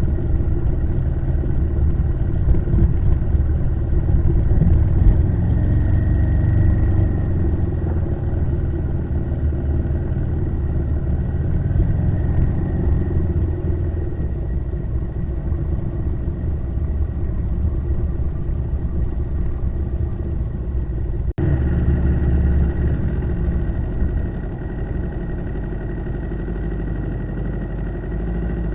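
Motorcycle engine running steadily while under way, with a low rumble under it. The sound cuts out for an instant about three-quarters of the way through, and the engine is a little quieter after that.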